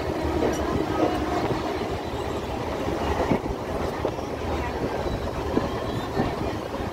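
Inside a MEMU electric multiple-unit train coach on the move: a steady rumble and rattle of the running train, with a few sharp knocks from the wheels and running gear.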